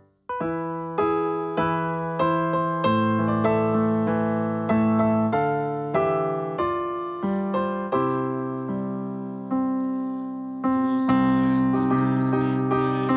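Piano or electric keyboard playing a slow melody over chords, each note struck and left to die away, roughly one or two notes a second. It starts after a brief silent gap and grows fuller near the end.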